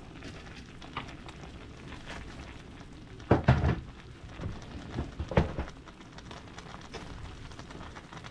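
Pan of sour soup with bean sprouts heating toward the boil, giving a steady bubbling hiss. Two short bursts of metal clattering come from a utensil in the pan, a little after three seconds and again about five seconds in.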